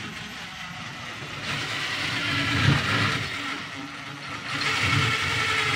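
Cordless drill driving screws up into the wooden underside of a kitchen cabinet, running in two long spells with a short easing between them.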